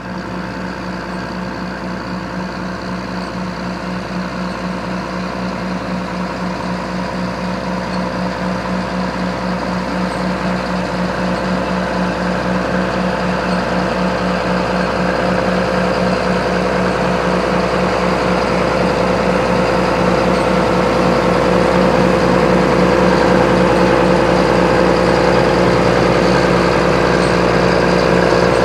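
John Deere 7720 tractor's six-cylinder diesel engine running at a steady speed, growing gradually louder.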